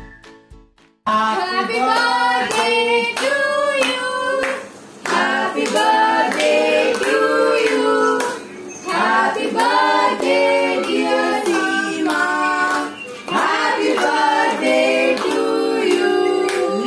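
Several voices singing a birthday song together with hands clapping in time, starting suddenly about a second in.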